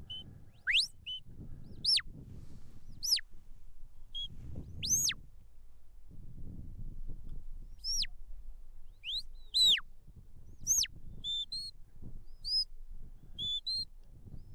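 Sheepdog handler's whistle giving commands to a border collie working sheep: a series of sharp whistle blasts that sweep up and then down in pitch, followed near the end by several short quick pips.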